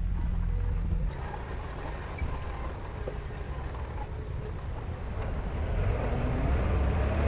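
Heavy-equipment diesel engine running steadily with a low rumble. It eases off a little about a second in and builds again near the end.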